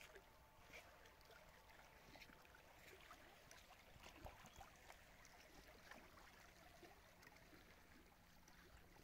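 Faint, gentle lapping of calm lake water against shoreline rocks: small, irregular splashes and ticks over a quiet hush.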